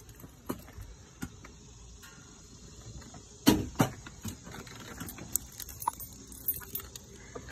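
Handling noise from a phone being moved and lowered: scattered clicks and rubbing, with two louder knocks about three and a half seconds in. Faint high insect chirring runs underneath.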